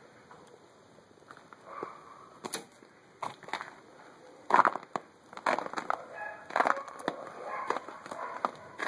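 Footsteps crunching on snow and ice in irregular steps, the loudest crunch about halfway through, with a rooster crowing during the second half.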